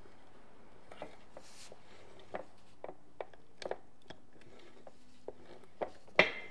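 Scattered light metallic clicks and knocks as parts of a partly assembled early VW split-case gearbox are handled and fitted, with a sharper knock near the end.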